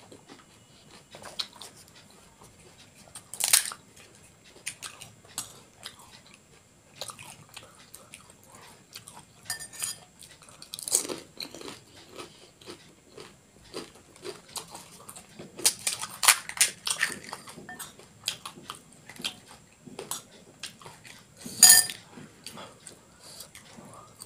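Close-miked chewing and crunching of panipuri: crisp fried puri shells cracking between the teeth, in irregular crunches with several louder ones spread through, the loudest near the end.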